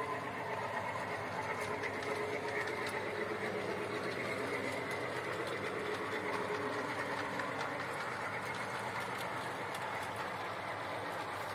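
Miniature 5-inch-gauge train running along steel track: a steady, rapid clatter of small wheels and rolling stock over the rails.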